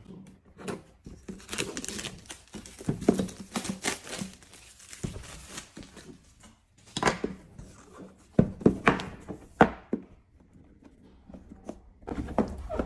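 Plastic shrink-wrap being torn and peeled off a cardboard product box, crinkling and crackling for several seconds. This is followed by a run of sharp knocks and taps of the box being handled, about seven to ten seconds in, and a few duller thuds near the end.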